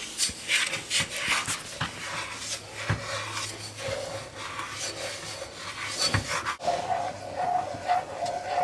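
A spoon stirring sugar and butter in a saucepan, scraping the pan in repeated irregular strokes while the sugar has not yet dissolved.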